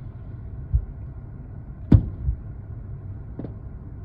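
Aerial fireworks shells bursting at a distance: a dull boom under a second in, a sharp loud bang about two seconds in and another dull boom just after, over a steady low rumble.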